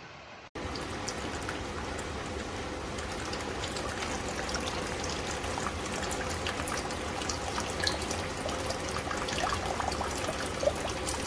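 Water trickling and splashing, with many small droplet clicks that grow busier toward the end, over a steady low hum.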